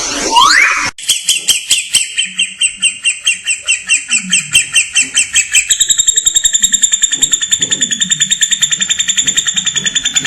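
Songbird song: a short rising whistle, then a long trill of identical high, clear notes repeated about four or five times a second. About six seconds in the notes step slightly higher and speed up to about nine a second.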